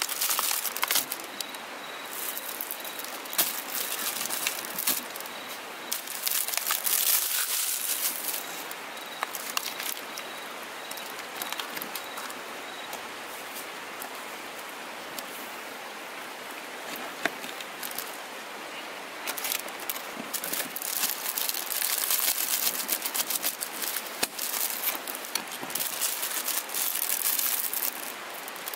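Plastic food packaging crinkling and rustling in bouts as mushrooms are unwrapped and handled on a wooden cutting board, with a few sharp little clicks.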